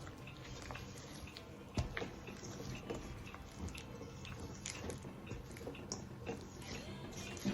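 Sticky sourdough rye dough being worked by hand: irregular wet squelching with small clicks, and two sharper knocks, one about two seconds in and one near the end.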